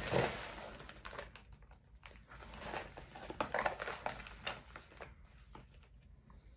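Plastic packaging crinkling and rustling as it is handled, in irregular spells with small clicks.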